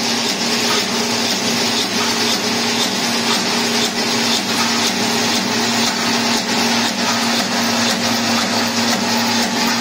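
CNC wire straightening and cutting machine running: a steady mechanical whir with a constant low hum, and faint ticks now and then.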